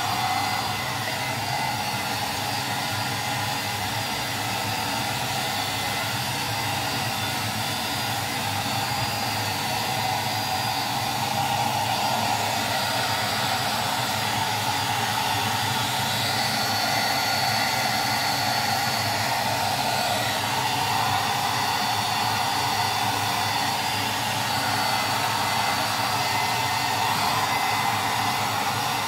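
Handheld hair dryer running steadily, blowing air into a dog's thick fur; the steady rush shifts a little in tone as the nozzle is moved over the coat.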